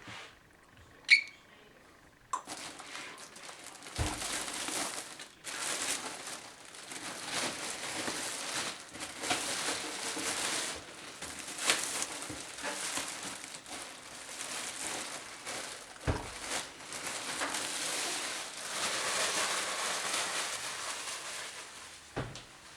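Plastic packaging crinkling and rustling as it is handled, with occasional knocks, after a single sharp click about a second in.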